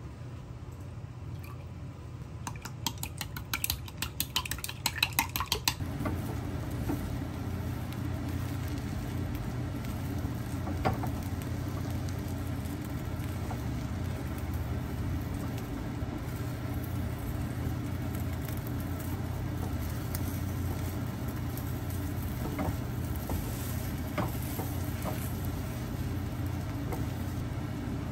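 Raw eggs beaten against a glass measuring cup, a rapid clatter for a few seconds. About six seconds in it gives way to a thin layer of beaten egg sizzling in a rectangular tamagoyaki pan, with a few light spatula taps.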